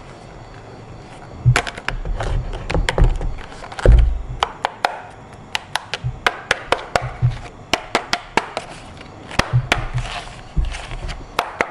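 A series of sharp clicks and knocks, irregular at first with a few low thuds, then coming about three a second through the middle.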